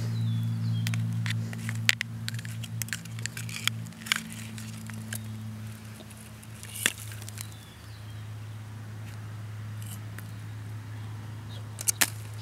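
A steady low hum, with scattered sharp clicks and scuffs over it, the loudest a pair near the end.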